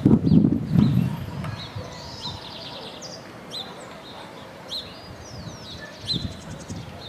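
Birds chirping, with short high calls scattered through and a brief rapid trill about two seconds in. Several loud low thumps or rumbles come in the first second or so.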